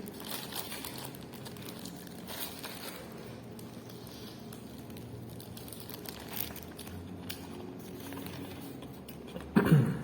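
Quiet eating sounds: faint crinkling and rustling of food packaging with small scattered clicks as food is handled. A short, louder low sound comes near the end.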